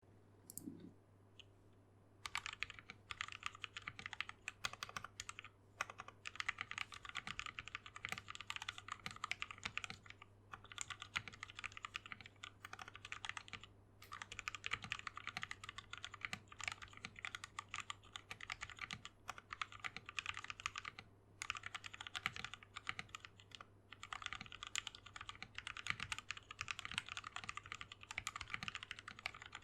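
Custom mechanical keyboard with lubed Gateron Milky Top Black linear switches, a polycarbonate plate, a clear plastic case and DSA keycaps, typed on quickly. The keystrokes come in runs with short pauses and start about two seconds in.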